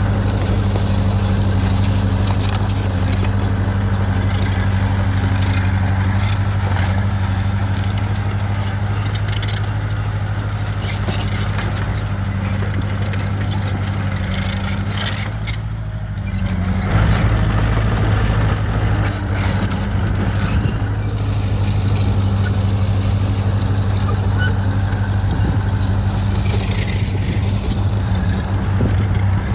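Heavy earthmoving machine's diesel engine running steadily under load, with scattered metallic clinks and rattles. The engine sound dips briefly about halfway through, then comes back a little louder.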